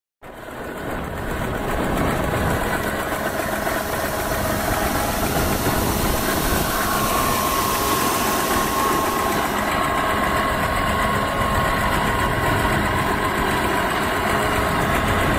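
Boat-mounted single-cylinder horizontal diesel engine running steadily. It builds up over the first couple of seconds and then holds an even, dense chugging noise with a faint steady whine.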